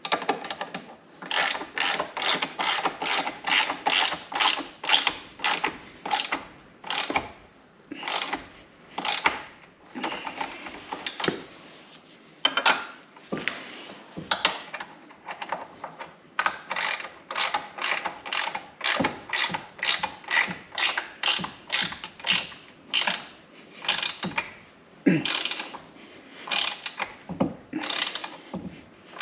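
Hand ratchet clicking in runs of about three clicks a second as a nut on a bolt is snugged down, with a couple of short pauses midway.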